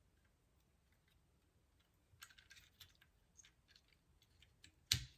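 Plastic Transformers action figures being handled: faint small clicks and rattles of plastic parts and joints begin about two seconds in, then one sharper knock near the end.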